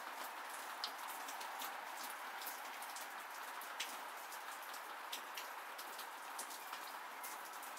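Steady rain falling, with many separate drops tapping sharply close by at irregular intervals.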